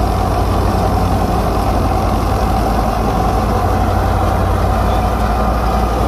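Wheat threshing machine and its engine running steadily: a constant low drone with an even mid-pitched whine on top, as the machine separates grain from the cut wheat.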